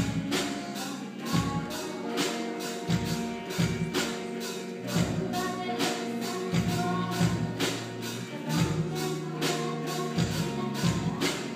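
Live rock band music: electric guitars and bass over a drum kit struck by sticks that a Raspberry Pi drives through its GPIO pins from a Scratch program, keeping a steady beat with bright cymbal strikes.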